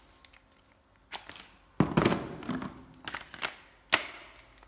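Hard plastic clicks and knocks from a Hitachi FDS 12DVA 12V cordless drill driver being turned over in the hands. There is a light click about a second in, a loud clatter about two seconds in, a few small clicks after it, and one sharp click near four seconds.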